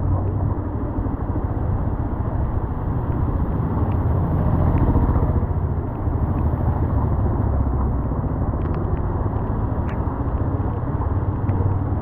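Yamaha R15 motorcycle ridden at low speed on a wet road: engine and road noise with a steady low rumble, swelling briefly about four seconds in.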